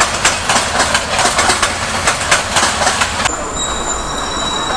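Express train running past, its wheels clicking rapidly over the rail joints. About three seconds in, a steady high-pitched wheel squeal starts up.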